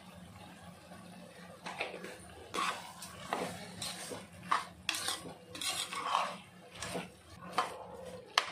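Slotted steel spoon stirring and scraping chopped vegetables around an aluminium pressure-cooker pot: a run of irregular scrapes and metal clinks that starts about two seconds in, with a sharp clink near the end.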